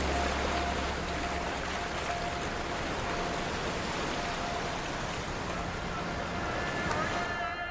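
Steady rushing hiss of ocean surf, with a faint high tone coming and going beneath it; the hiss drops away at the very end.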